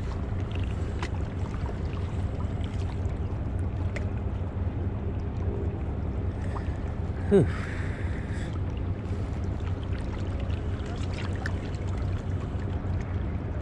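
Outdoor shoreline ambience: a steady low rumble of wind on the microphone and water, with a faint steady low hum under it. About halfway through, a brief sharp sound sweeps quickly up and down in pitch, followed by a short hiss.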